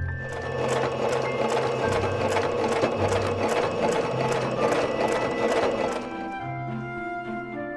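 Electric domestic sewing machine running at a steady speed, stitching a straight seam through fabric with a fast, even mechanical clatter that stops about six seconds in. Background music plays throughout.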